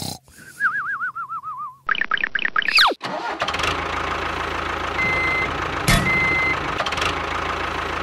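Cartoon sound effects, a wobbling tone sliding downward and then a quick falling whistle, followed about three seconds in by a vehicle engine starting and running steadily, with a thump near six seconds.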